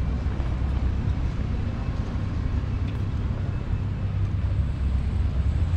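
Road traffic on a city avenue: a steady low rumble of passing cars.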